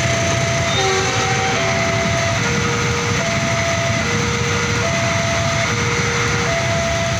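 Railway level-crossing warning alarm sounding an alternating high-low two-tone signal, each tone a little under a second, over the steady rumble of a passenger train passing and idling motorcycles.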